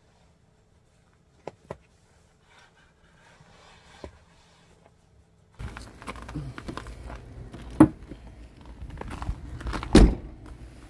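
Faint clicks and rustles from hiking boots being laced up. About halfway in, a louder, rougher stretch of footsteps, scuffs and handling knocks begins, with two heavy thumps, the second and loudest near the end.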